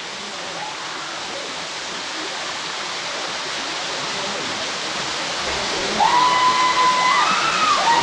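Steady rushing of a waterfall and stream, growing gradually louder. About six seconds in, a long held high tone comes in and stays, bending up and back down once.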